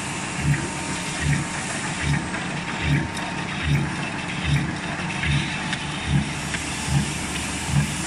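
Stainless steel flanging and crimping machine running, spinning a cylindrical steel shell while its rollers turn out a flange on the bottom edge. Steady mechanical hiss with a low thump repeating evenly about every 0.8 seconds.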